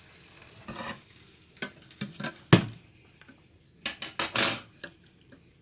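Kitchen dishes and utensils knocking and clinking: scattered sharp knocks, the loudest about two and a half seconds in, then a short run of clatter about four seconds in.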